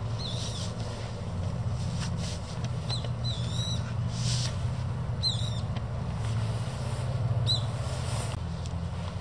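Short, high bird chirps about five times over a steady low rumble, with brief fabric rustles as a camping cook pot is slid out of its carry sleeve.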